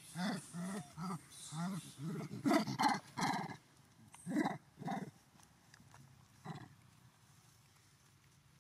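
Macaques calling while feeding: a run of short pitched calls, closely spaced at first and loudest between about two and three and a half seconds in, then a few single calls that thin out and stop after about seven seconds.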